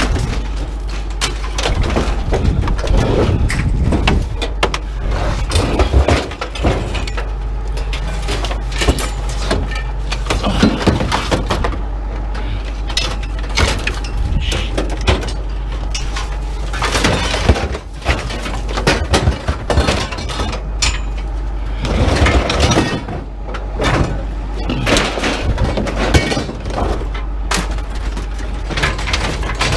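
Scrap metal crashing and clanging as pieces are thrown from a truck onto a scrap pile, one impact after another with hardly a pause, over a steady low machinery hum.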